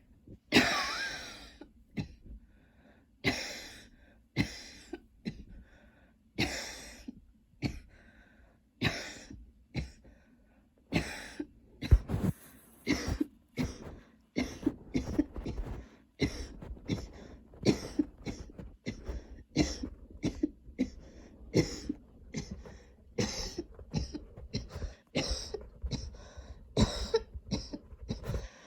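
A woman coughing in a long, nonstop spell driven by a tickle in her throat. Single sharp coughs come about a second or so apart at first, then quicker runs of coughs in the second half.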